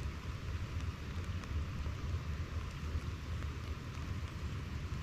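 Light rain falling, with scattered faint drop ticks over a steady low rumble.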